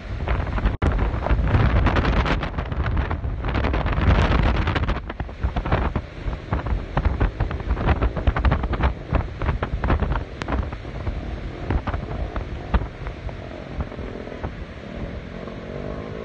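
Strong typhoon wind gusting and buffeting the phone's microphone with a heavy rumble, hardest in the first five seconds and easing later, with many short crackles throughout.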